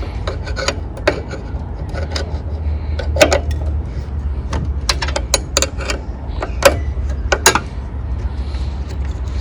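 Irregular metal clicks and knocks of a 13 mm wrench being fitted to and turned on the bowl nut of a Tecumseh lawnmower engine's carburetor, over a steady low rumble.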